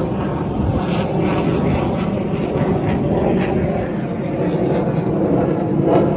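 Jet noise from a formation of KAI T-50B jet aircraft flying past overhead: a loud, steady rushing sound that swells slightly near the end.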